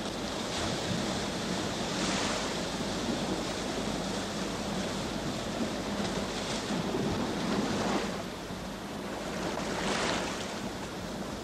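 Small waves breaking and washing up on a sandy beach: a steady surf hiss, with several louder surges as waves break, the strongest near the end.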